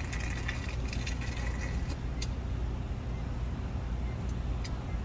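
Code being punched into a Schlage keypad deadbolt: a quick run of short high-pitched taps from the keypad buttons during the first two seconds, then a few single clicks, over a steady low hum.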